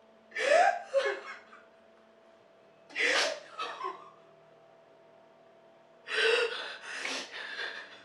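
A young woman sobbing, three bursts of gasping, wavering cries at about half a second, three seconds and six seconds in, over a faint steady hum.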